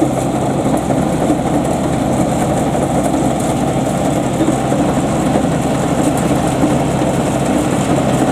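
Homemade Vietnamese combine harvester's engine running steadily.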